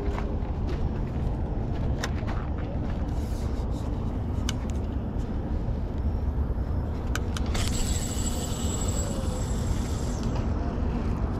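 Steady low rumble of outdoor background noise, with scattered light clicks and a hiss lasting about two and a half seconds, starting near eight seconds in.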